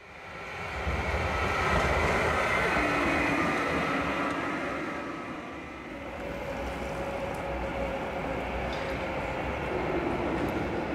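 Tram rolling along street rails: a low rumble with a faint motor whine. It is loudest two or three seconds in, eases off around the middle and swells again near the end.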